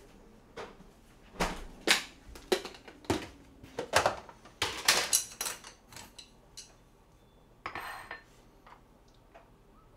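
Clicks and knocks of a plastic food-storage container's snap-lock lid being unclipped and lifted off, then fainter taps as seasoned dried radish is picked out into a small bowl.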